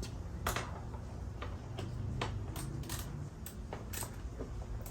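Irregular light clicks and taps, about eight over the few seconds, from small motorcycle parts and wiring being moved around by hand, over a steady low hum.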